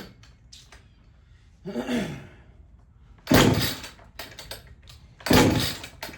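Two-stroke chainsaw being pull-started by its recoil cord: a softer pull about two seconds in, then two hard pulls about two seconds apart, each a short rasping whir, with the engine not catching. The owner suspects the carburetor needs adjusting.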